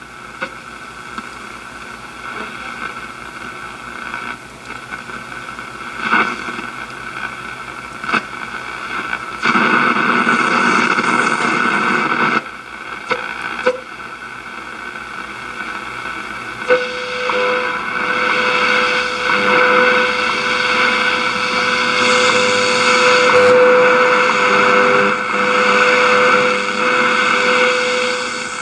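Shortwave radio receiver tuned near 10 MHz: hiss and static that swell and fade, a few clicks, then a steady 500 Hz tone about halfway through, typical of the WWV/WWVH time-signal broadcast.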